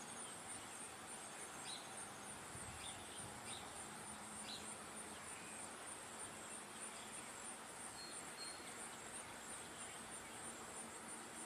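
Insects trilling steadily: a continuous high-pitched, rapidly pulsing chorus, with a few faint short bird chirps in the first half.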